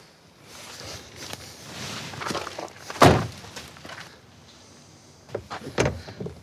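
Ford Bronco door being shut with one loud thunk about three seconds in. Lighter clunks and knocks come before and after it as the removable doors are put back on.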